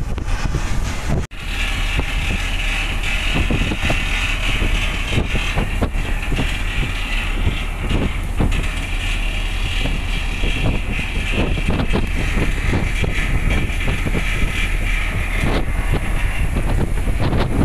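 Wind buffeting the microphone on the open deck of a moving container ship, over the steady rumble of the ship's machinery. The sound cuts out for an instant about a second in.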